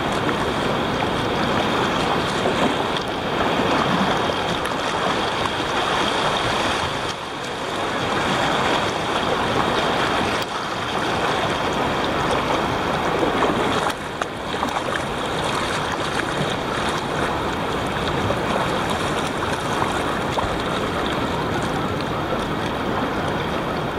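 Fast river water rushing through a riffle and splashing against the bow of a kayak, a steady, loud rush.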